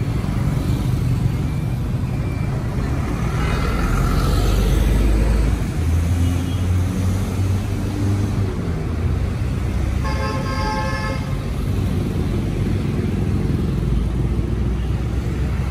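Street traffic passing close by: motorbikes, buses and trucks with engines running and a steady low rumble that swells as heavier vehicles go past. A vehicle horn sounds once, a single blast of just over a second, about ten seconds in.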